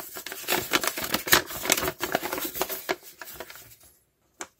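Plastic bag crinkling and paper rustling as a folded paper note is pulled out of a clear parts bag and unfolded, a dense run of crackles that stops about four seconds in. Two short crackles follow near the end.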